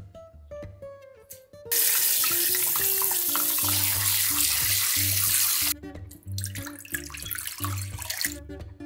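Kitchen tap spraying water over a sailfin sandfish being rinsed by hand in a stainless sink, starting about two seconds in and cutting off suddenly four seconds later. Near the end, water is poured from a jug into a pan.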